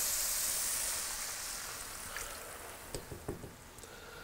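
Water poured into a hot skillet of browned ground beef and taco seasoning sizzling, the hiss fading over the first couple of seconds. A few light taps of a spatula against the pan follow near the end.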